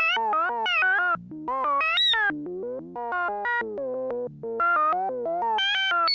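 Synthesized electronic tones in a quick, random sequence of short notes, jumping up and down in pitch several times a second with slight bends, over a faint steady low hum: a sci-fi computer-signal effect.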